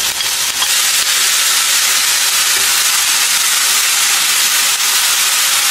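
Diced pumpkin and onion sizzling steadily in butter in a frying pan.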